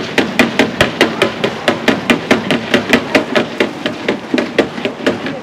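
Wooden paddles knocking and scraping against a large metal pan while tossing a heap of small fried oranda snack balls. It makes a fast, even clatter of about five strokes a second.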